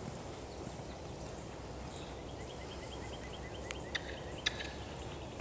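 Steady low outdoor background noise. About two seconds in, a bird gives a quick run of short, high chirps, about five a second, followed by a few sharp clicks.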